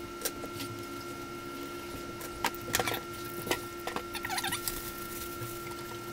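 Scattered clicks, crinkles and a brief squeak from craft materials being handled at a work table, over a steady background hum.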